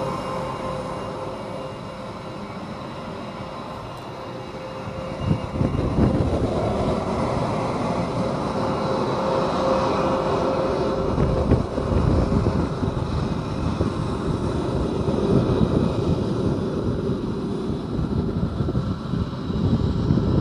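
F-22 Raptor's twin Pratt & Whitney F119 turbofan engines at taxi power: a steady jet whine over a deep rushing drone, growing louder and rougher about five seconds in as a jet rolls close past.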